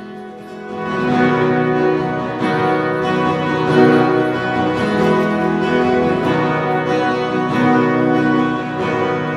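Live worship band playing an instrumental song intro on acoustic guitars and keyboard with sustained, string-like chords, growing louder about a second in.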